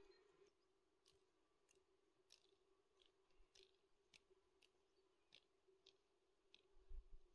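Near silence: faint scattered clicks, roughly two a second, over a faint steady hum, with a soft low thump near the end.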